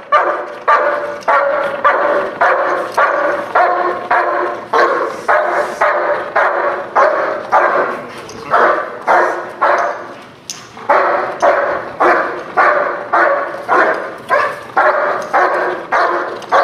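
Shepherd dog barking steadily at about two barks a second, pausing for about a second just before the middle. It is a guard dog's threat barking at a decoy in a bite suit during protection training.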